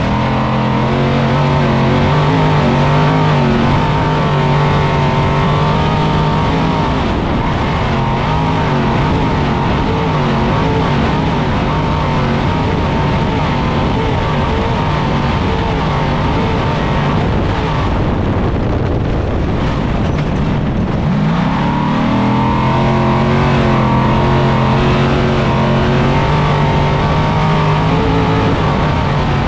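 Trophy Truck's engine running hard at high revs under a steady rush of noise, heard from inside the cab. The engine note wavers and drops through the middle, then climbs steeply about two-thirds of the way in as the truck accelerates, and holds high near the end.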